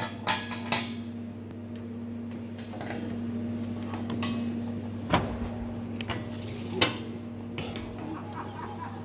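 Steady low electrical hum, as from a MIG welding machine standing ready, with a few sharp metallic clinks and knocks, the loudest about five and seven seconds in.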